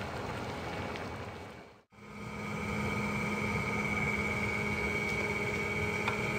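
Large iron woks of braised chicken pieces boiling hard over coal stoves, a steady bubbling roar. About two seconds in the sound drops out briefly, and after that a steady low hum and a higher whine run under the boiling.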